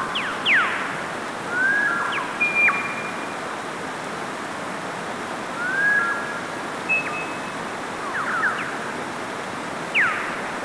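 Mountain stream rushing steadily over rocks, with high whistled calls over it every few seconds: quick downward-sweeping whistles, notes that rise and then hold level, and short flat notes.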